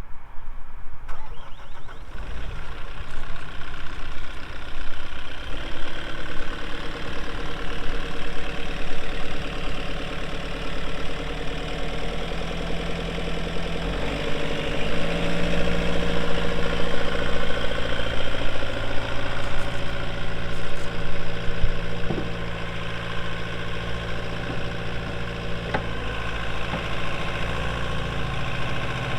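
JCB 85Z-1 excavator's Kohler diesel engine running steadily, its note shifting about five seconds in and again about fourteen seconds in.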